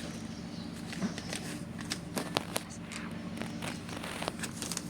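Crinkling and small sharp clicks from a homemade paper blind bag being handled, over a steady low hum.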